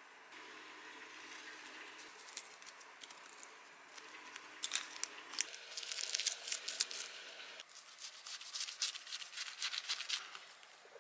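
Dry gim (seaweed sheet) crackling and crinkling as a gimbap roll is pressed and rolled by hand. Later a knife slices through the roll's crisp seaweed wrapper in quick runs of crackles.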